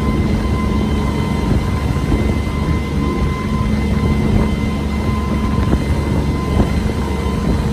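Engine of a passenger launch running steadily under way: a low, even rumble with a thin steady whine above it.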